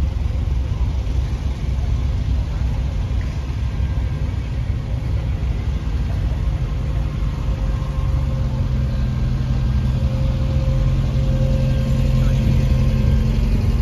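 A slow queue of classic and modern Mini cars idling and creeping past in low gear, a steady low engine rumble. From about eight seconds in, the steady note of a nearby car's engine comes up and grows louder toward the end.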